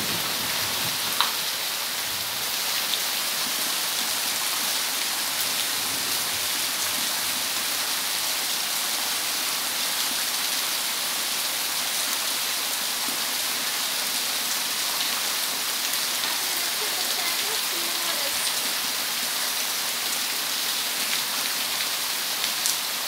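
Heavy downpour falling steadily on leaves and a waterlogged concrete yard: an even, unbroken hiss of rain.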